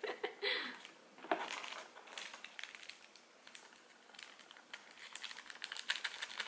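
Fingers picking and tearing apart a slice of deep-dish pizza with a burnt crust, giving a run of fine crackles and small clicks from about two seconds in.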